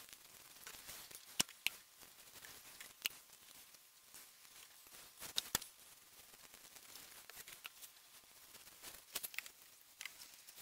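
A large kitchen knife slicing raw beef on a plastic cutting board: quiet cutting and handling, with scattered sharp taps of the blade against the board, a few of them in quick pairs.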